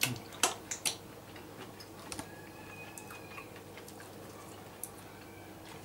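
Faint, scattered clicks and crackles of a fried king prawn's shell being broken and peeled by hand.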